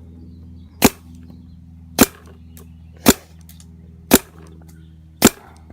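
DLX Luxe paintball marker firing single shots: five sharp pops spaced about a second apart.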